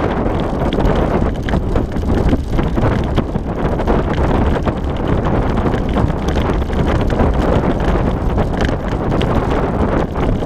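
Wind rushing over the microphone above the continuous rattle and crunch of a sled-dog racing rig rolling along a trail behind a four-dog team.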